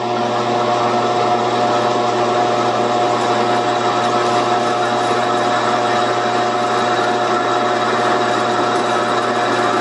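Metal lathe running steadily while a hand-fed carbide cutter turns a cone on spinning aluminum round stock: a steady machine whine over an even cutting hiss.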